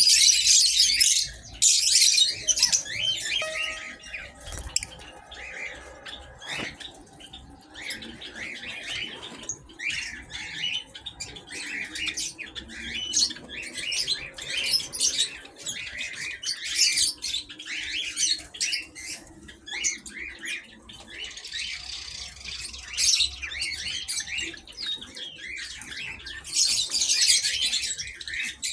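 A flock of small aviary birds calling all at once in a dense, continuous high chatter, louder in the first few seconds and again near the end.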